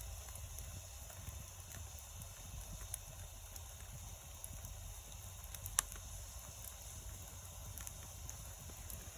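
Wood fire crackling, with scattered pops and one sharper pop about six seconds in, over a low steady rumble.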